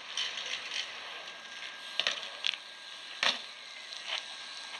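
BMX bikes ridden on concrete: a few irregular sharp knocks and clacks over a steady hiss, the loudest about three seconds in.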